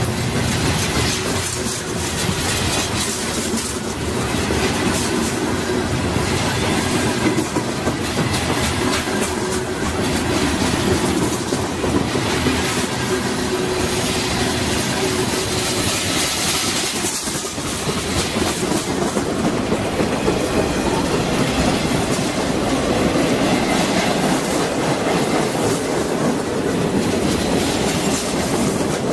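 Freight train of covered hoppers and boxcars rolling past close by, its wheels clattering steadily over the rails.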